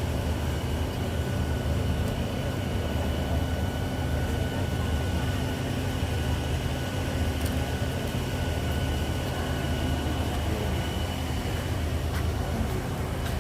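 Steady low rumble of a vehicle, with a faint thin whine above it that fades out near the end.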